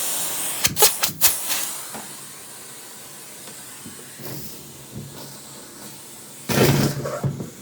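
Central vacuum's non-electric hose sucking up debris: a rush of air with sharp clattering as bits are drawn up the hose about a second in. The rush then falls to a quieter hiss, and another burst of clatter comes near the end.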